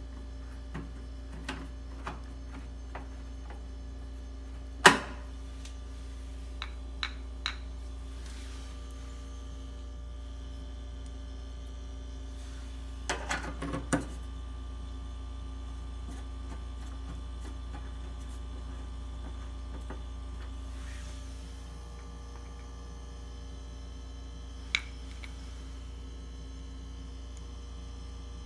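Old refrigerator running with a steady low hum, broken by a few sharp clicks and knocks, the loudest about five seconds in and a short cluster about halfway through.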